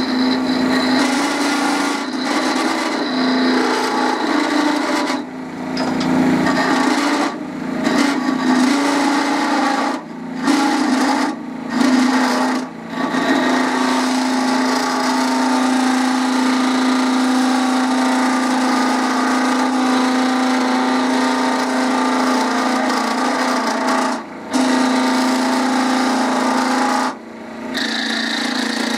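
Wood lathe running with a steady motor hum while a hand turning tool scrapes and cuts the spinning wood of a small spinning top. The scraping cuts off briefly several times and resumes.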